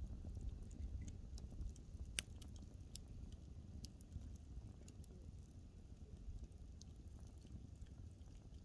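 Wood fire burning in a fireplace, crackling faintly with scattered sharp pops, the loudest a little after two seconds in, over a low steady rumble of the flames.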